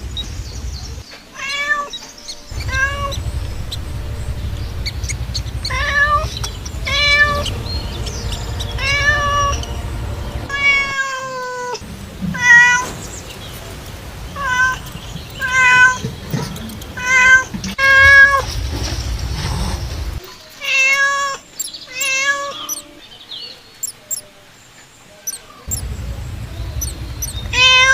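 Cat meowing over and over, about one call a second with a few short pauses, over a low rumble that drops out now and then.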